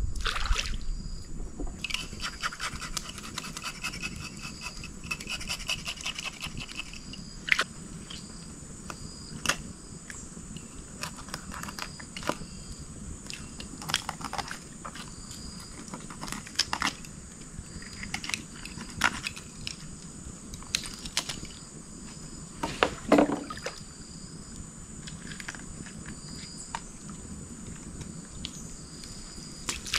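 Small fish scaler on the back of a knife scraping scales off a fish in short, irregular strokes.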